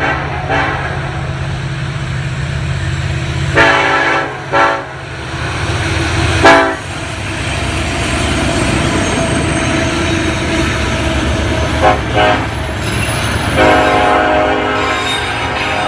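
Diesel freight locomotives running past with a steady low rumble, the horn sounding a series of short blasts and then a longer, held blast near the end.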